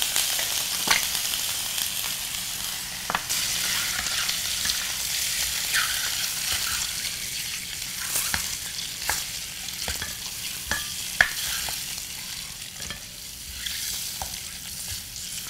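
Peeled hard-boiled eggs sizzling in hot mustard oil and turmeric in a stainless steel skillet, with scattered sharp clicks and knocks as a spoon turns the eggs against the pan.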